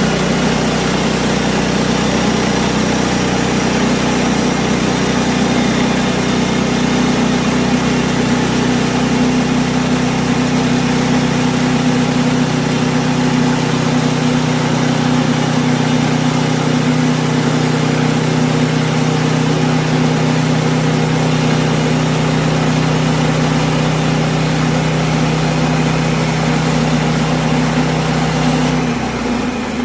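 A sawmill's engine running steadily at constant speed. Its steady note cuts off near the end.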